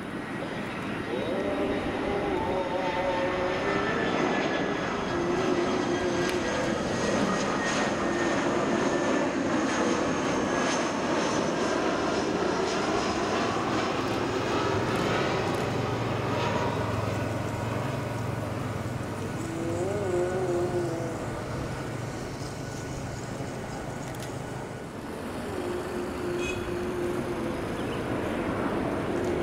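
Airbus A320-214 jet airliner on final approach, its CFM56 turbofans giving a steady rushing roar with a faint whine that falls slowly in pitch. Near the end the sound dips briefly, then a second airliner's engines, a Boeing 787-9's, take over.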